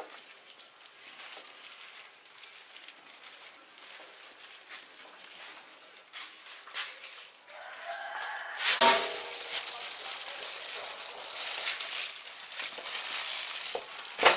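Plastic bags rustling and crinkling as they are wrapped and tied around fruit on the tree, louder and busier in the second half. About eight seconds in there is a brief pitched call with a sharp loud spike.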